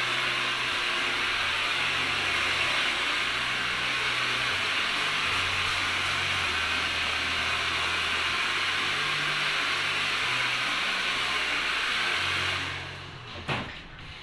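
Hair dryer blowing steadily, then switched off near the end, followed by a couple of clicks.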